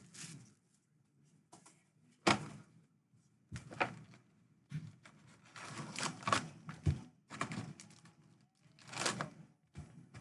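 Cardboard card box and its wrapped trading-card packs being handled: irregular taps, knocks and rustles as the packs are taken out and set down.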